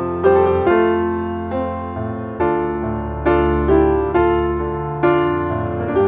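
Background piano music: gentle notes struck one after another at an unhurried pace, each fading away, over held low notes.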